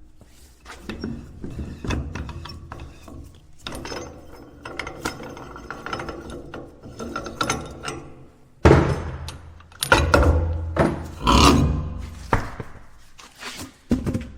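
Wheel balancing machine working: clicks, clunks and ratchet-like knocks over a low mechanical rumble, with louder, longer surges of noise from about nine seconds in.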